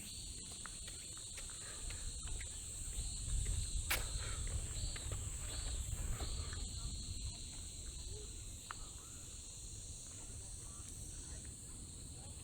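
Night insects: a steady high-pitched cricket trill with a repeated chirp about twice a second. Beneath it runs a low rumble that swells in the middle, with one sharp click about four seconds in.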